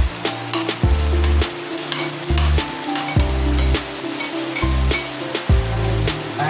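Chopped onions sizzling as they fry in hot oil in a stainless steel pan, with sharp clicks of a knife scraping and stirring against the pan.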